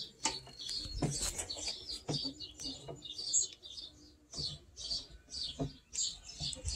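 A bird chirping over and over in short high notes, a few a second, with a few brief knocks scattered among them.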